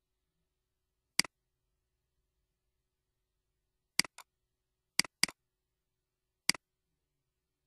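Computer mouse button clicks: six short, sharp clicks, some single and two in quick pairs like a double-click, with dead silence between them.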